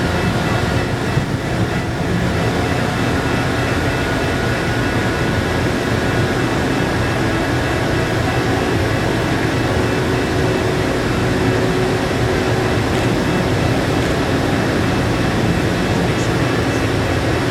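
Steady machinery drone of the ferry MV Salish Heron under way: a constant low rumble with a few faint steady tones over it.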